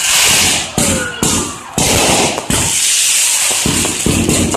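Aerial fireworks bursting in quick succession: about six loud bangs, each trailing into a bright hissing crackle.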